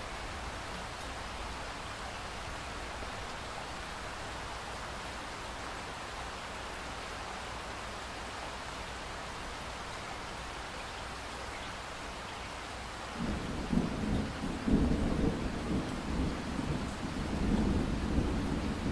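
Steady rain falling, then about two-thirds of the way through a roll of thunder comes in low and rumbles on, swelling and fading, louder than the rain.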